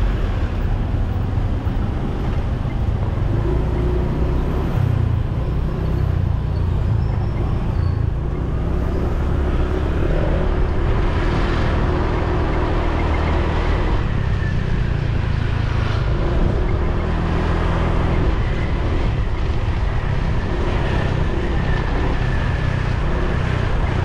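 Motorbike riding through town traffic: its engine runs steadily under heavy wind noise on the microphone, with other cars and scooters around it.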